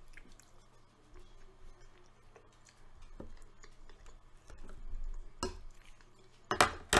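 Close-miked chewing and wet mouth sounds of someone eating meatballs in tomato sauce, soft and squishy, with a few sharp clicks near the end.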